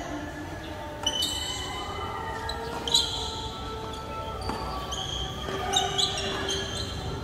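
Tennis rally on a hard court: sharp knocks of rackets striking the ball and the ball bouncing, about one to two seconds apart with two close together near the end, echoing in a large hall. Short high squeaks of sneakers on the court come with several of the hits.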